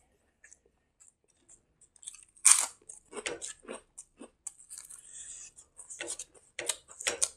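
A person chewing a mouthful of food close to the microphone: wet mouth smacks and crunches in quick irregular strokes, starting about two and a half seconds in, the first the loudest.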